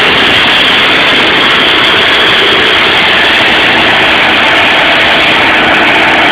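Perkins 6354 turbocharged six-cylinder diesel engine of a 117 kW generator set running steadily and loudly.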